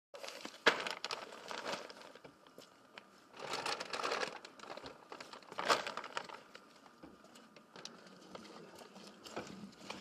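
Plastic sacks of animal feed rustling and crinkling as they are handled and lifted out of a car boot, in several irregular bursts with a sharp crackle about half a second in.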